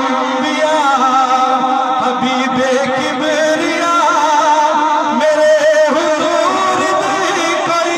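A man singing a Punjabi naat into a microphone through a sound system, drawing out long, wavering held notes without clear words.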